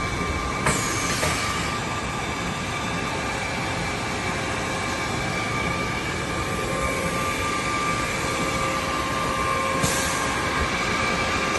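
SOCO MC-350FA 14-inch automatic cold saw running: a steady mechanical whine over even machine noise, with two brief clicks, one under a second in and one about ten seconds in.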